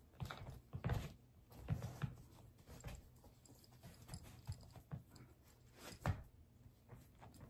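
Scattered soft thumps and light rustling as a Yeezy 350 V2 knit sneaker is tugged on by the heel over a bare foot, the shoe knocking now and then on a wooden floor.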